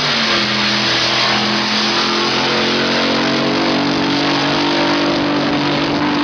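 Drag boat's racing engine running hard at steady high revs, its pitch held and shifting in small steps.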